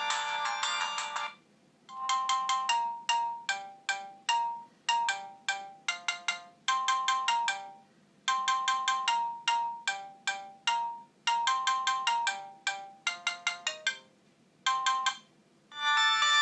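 Siemens MC60 mobile phone ringtones. One fuller, chord-like ringtone ends about a second in. After a short pause a different tune of short, separate notes plays and repeats its phrase, and another dense ringtone starts just before the end.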